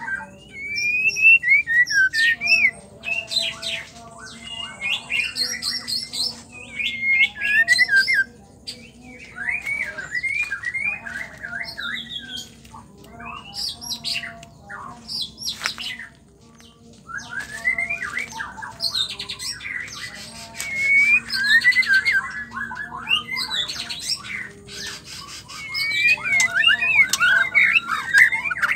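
White-rumped shama singing: fast bursts of varied whistled phrases, many notes sliding up or down, broken by short pauses, with a longer pause a little past halfway.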